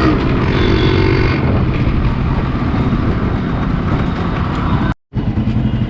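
Yamaha RX100's air-cooled two-stroke single running on the move, with wind and road noise over it. The sound cuts out for a moment about five seconds in.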